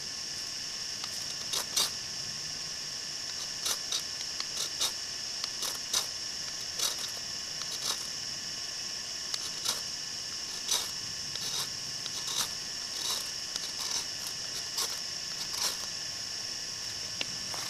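A fire steel scraped in short strikes, irregular and about one a second, throwing sparks onto charred punk wood to catch an ember.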